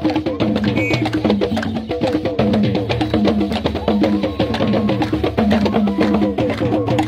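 Music of fast, dense drumming and percussion, the strikes coming many times a second over steady held pitches.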